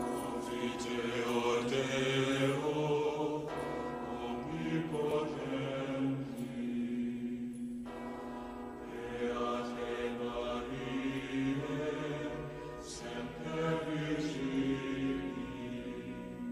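Male choir chanting in Latin on long held notes over slow orchestral music, with a church bell struck at times.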